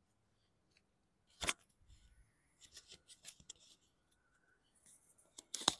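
Scattered light clicks and taps from someone handling things and moving beside a lawn mower that is not running, with one sharp click about a second and a half in and another just before the end.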